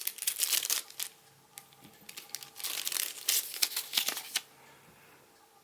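Small plastic bag crinkling as it is opened and a remote control is taken out, in two spells of rustling: one at the start and one around the middle.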